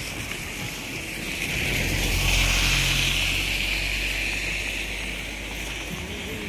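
A motor vehicle passing on a wet road: engine hum and tyre hiss swell to a peak about two and a half seconds in, then fade.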